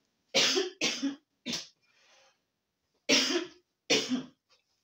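A woman coughing hard in a choking fit: three harsh coughs in quick succession, a pause of about a second and a half, then two more.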